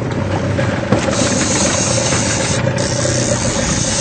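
Fishing boat's engine running steadily under a constant hiss, building up just before and holding level throughout.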